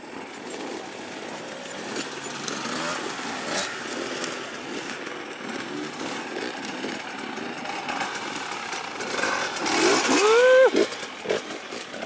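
Dirt bike engine running, with voices, and a loud shout about ten seconds in.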